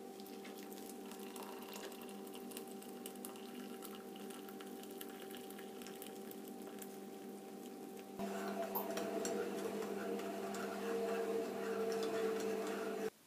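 Hot water trickling from an electric kettle into a mug over a tea bag, over a steady hum. About eight seconds in, a spoon starts stirring the tea, with quick light clinks against the mug's sides.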